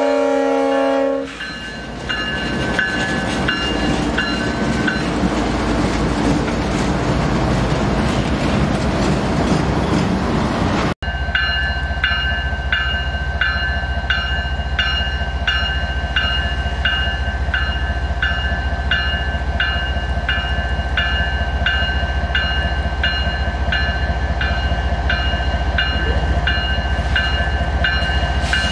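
A CSX diesel freight train: a locomotive horn chord cuts off about a second in, then the train's covered hopper cars roll past with a steady rumble. The sound then cuts to the approaching lead locomotives, their diesel engines rumbling under a bell that rings over and over.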